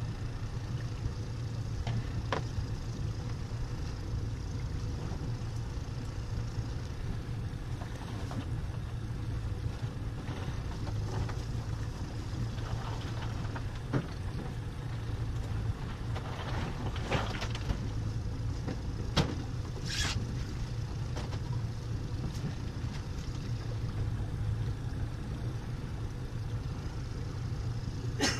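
Honda 90 hp four-stroke outboard motor running at a steady low trolling speed, a constant low hum, with a few short knocks and taps over it.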